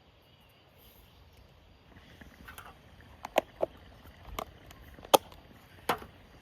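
A series of about six sharp knocks and clicks, some with a short ring, beginning about two and a half seconds in; the loudest falls about five seconds in. Hard objects are being handled or set down.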